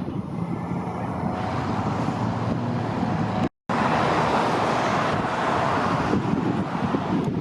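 Steady rushing wind and vehicle noise, broken by a sudden split-second dropout about halfway through, after which it is louder.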